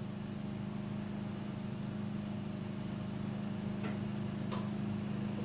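Crane engine running steadily at a constant speed with a low hum while lifting a heavy steel part, with two light metallic clicks about four seconds in.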